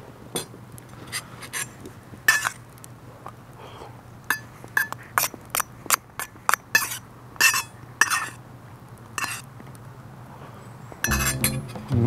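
A metal spoon clinking and scraping against a small metal bowl of fried rice as it is scooped up and eaten: over a dozen short, ringing clinks, irregularly spaced. Background music comes in near the end.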